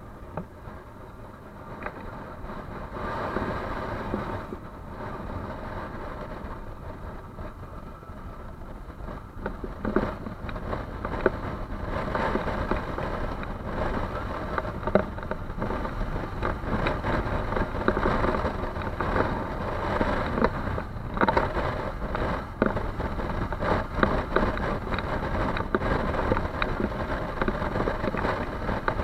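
Motor vehicle being driven hard with the throttle open, its engine running under load amid rough, uneven noise that grows louder about ten seconds in.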